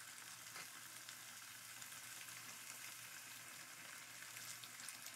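Chicken kebab patties frying in hot oil in a pan: a faint, steady sizzle with fine crackling.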